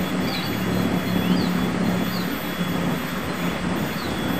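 Steady low engine drone, with faint short high chirps repeating about once a second.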